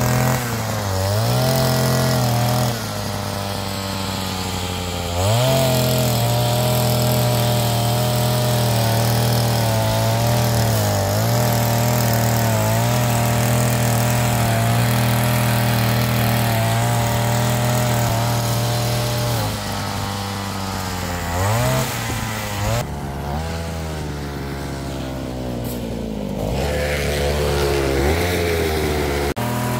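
Petrol brush cutter running at high throttle while it cuts grass. Its engine note dips briefly and picks back up several times as the cutting head meets thicker growth.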